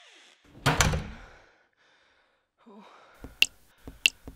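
Sound effects: a heavy door thud about half a second in that rings out for most of a second, then three sharp knocks about half a second apart near the end.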